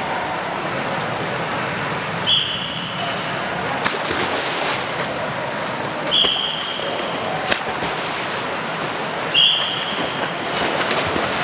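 Swimming coach's whistle blown in three short blasts a few seconds apart, each the signal for the next child to jump in. Splashes of children hitting the water come in between, over the steady wash of an indoor pool hall.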